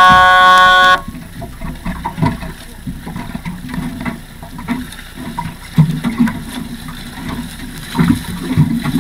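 A loud, steady horn blast lasting about a second, a signal horn sounded on the racecourse. It is followed by uneven low rumbling with scattered knocks.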